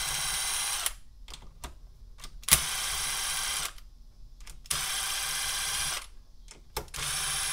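Cordless power driver with a 10 mm socket spinning out the cam-cap bolts on a KTM 450 SX-F cylinder head. It runs in four short spurts of about a second each, one per bolt, with small clicks of handling in between.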